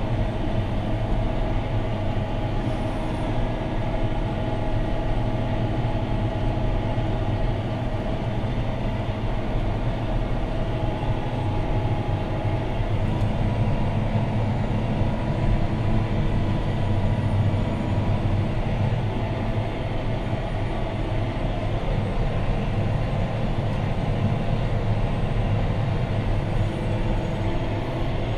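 John Deere 6215R tractor's six-cylinder diesel engine running steadily under ploughing load, heard from inside the cab as an even, unbroken drone.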